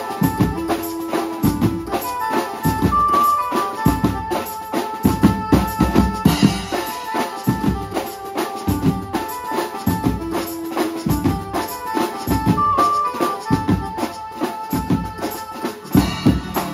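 Live banjo-party band music: two keyed melody instruments, an electric banjo and a keyboard, play long held notes over a drum kit and a row of tom-style drums beating a steady rhythm.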